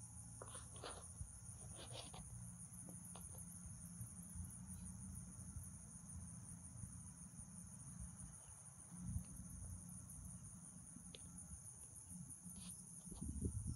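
Steady high-pitched insect chorus, a continuous pulsing chirring, over a low rumble of light wind on the microphone, with a few faint clicks in the first couple of seconds.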